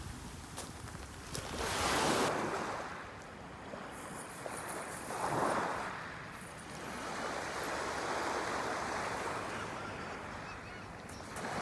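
Ocean waves breaking and washing up on a beach, the surf swelling and falling back several times.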